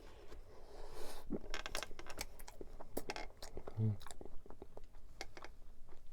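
Close-miked biting into and chewing a large tart: the flaky pastry crust crunches and crackles in many sharp little snaps, with wet chewing in between. A short low hum from the throat about four seconds in.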